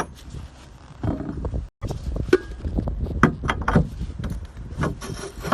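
Irregular knocks and clicks over a steady low rumble, with a brief dropout a little under two seconds in.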